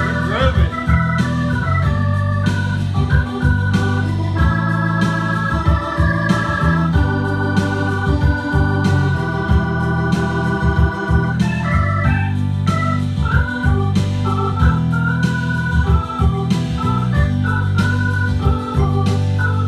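Hammond organ played through a Leslie speaker: held chords over a low bass line, the chords changing every second or two and the tones wavering.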